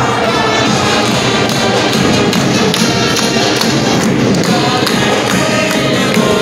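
Brass band with drums playing in a school gymnasium.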